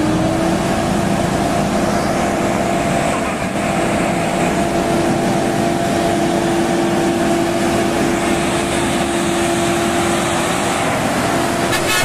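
Turbo-intercooled diesel truck engine pulling hard up a steep incline in a low gear, with a steady, even drone that grows close as the truck passes.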